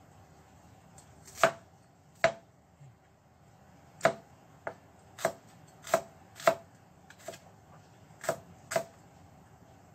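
Kitchen knife slicing shallots on a white plastic cutting board: about ten sharp knocks of the blade against the board, unevenly spaced, roughly half a second to a second apart.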